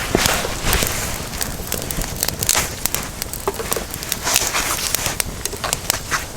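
Wood fire crackling, with irregular sharp pops and snaps over a steady hiss.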